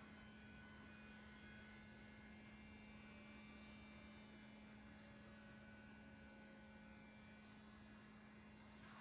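Near silence: a faint steady hum, with a few faint short high chirps.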